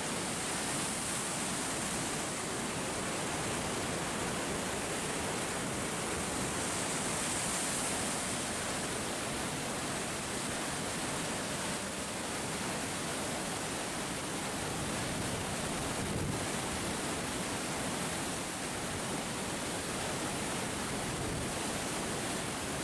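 Water rushing steadily down the sloping spillway of an irrigation reservoir's dam, an even, unbroken rush of white water.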